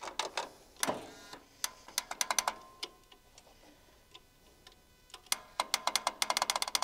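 Farmall M's starter solenoid clicking with no engine cranking: sharp clicks, scattered at first, then a rapid chattering run of about ten a second near the end. The owner puts it down to a bad solenoid or a bad starter.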